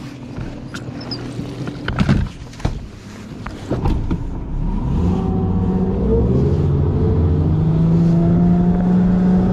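Bass boat's outboard motor coming up to speed about halfway through, rising in pitch, then running steady. Before it, a few sharp knocks on the boat.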